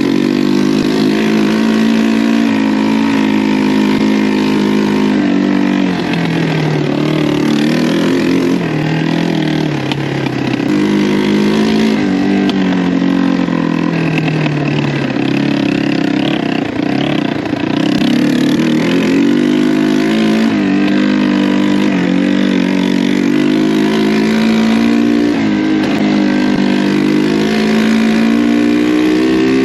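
1985 Yamaha 225DX three-wheeler's single-cylinder four-stroke engine running under load on a test ride, its pitch rising as it revs and falling back repeatedly as the rider accelerates, lets off and shifts.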